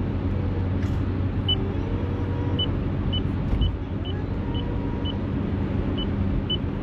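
Car cabin noise while driving: a steady low engine and road hum. From about a second and a half in, a string of about ten short, high beeps sounds roughly every half second.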